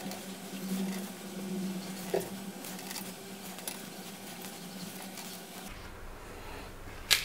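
Soft handling noises of steamed rice-flour modaks being set down on a banana leaf on a steel plate: faint taps and rustles, with a sharper click near the end, over a steady low hum.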